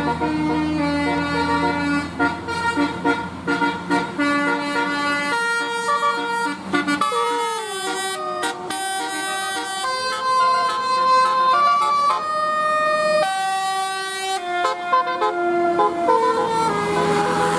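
Multi-tone telolet air horn on a bus playing a melody. Its tones step from pitch to pitch every fraction of a second, with a falling slide about halfway through and a rising slide soon after. A low engine rumble sits under the first half.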